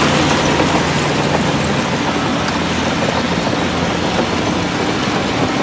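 Heavy diesel earthmoving machinery running steadily under power, a low engine drone with broad mechanical noise over it.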